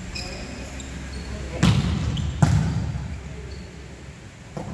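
A volleyball thudding twice on a wooden sports-hall floor, under a second apart, each hit echoing in the hall, with a lighter knock near the end.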